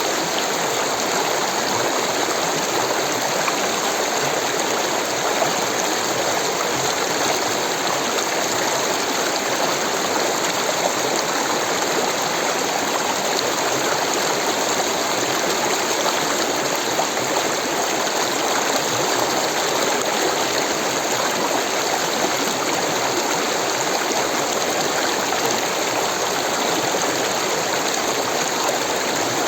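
Rushing water of a stream flowing steadily, an even, unbroken noise.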